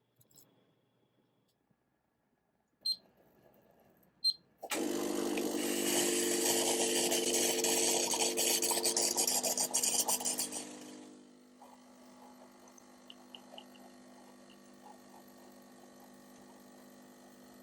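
Espresso machine steam wand frothing milk: two clicks, then a sudden loud hiss with a rasping, crackling edge and a steady hum under it for about six seconds, which drops to a much quieter steady hiss as the milk is textured.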